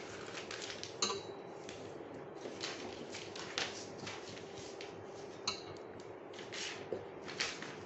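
Glossy magazine paper being folded and creased by hand: repeated crisp rustles and crackles, with a few sharper clicks, over a faint steady hum.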